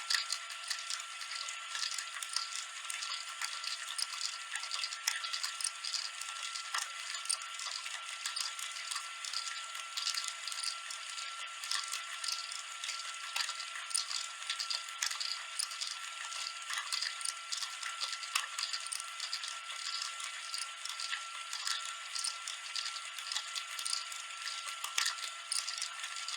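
VHS tape static from the blank end of a cassette: a steady hiss full of small crackles, with a thin constant whistle underneath.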